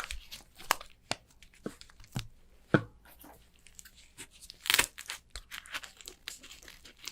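Clay slime being squeezed and stretched by hand, giving irregular sticky pops and crackles, with a louder pop about three seconds in and a short burst of crackling near five seconds.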